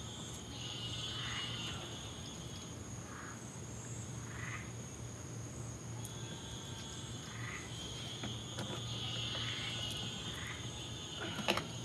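Night insects trilling in repeated bursts, with frogs calling softly every second or two, over a steady low hum. A couple of sharp clicks near the end.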